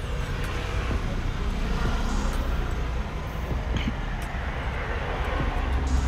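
Steady low rumble of background traffic, with a few faint metal clicks as a chain tensioner is set against the bicycle frame.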